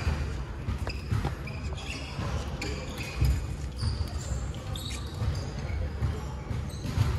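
Badminton play on a wooden court: repeated dull thuds of footsteps and lunges, sneakers squeaking in short high squeals, and sharp clicks of rackets hitting shuttlecocks, echoing in a large hall.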